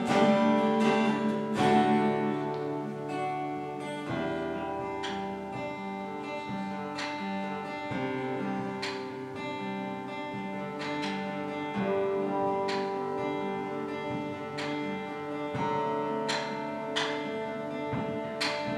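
Acoustic guitar playing softly on its own, slow chords strummed about once a second and left to ring. It is louder for the first couple of seconds, then settles quieter.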